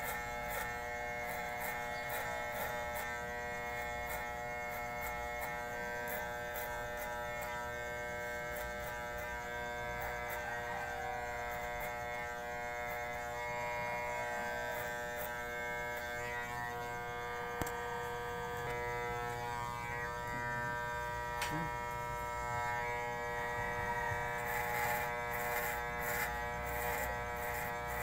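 Electric hair clippers running with a steady buzz as they cut short hair.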